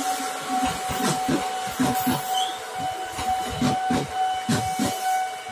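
KRL Commuterline electric multiple unit passing close by at speed, its wheels clacking over the rail joints several times a second, with a steady high tone underneath.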